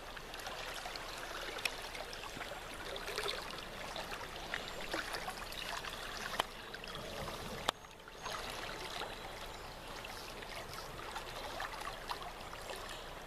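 Flowing creek water, a steady rushing and trickling, with a few brief sharp clicks; the sound drops away for a moment about eight seconds in.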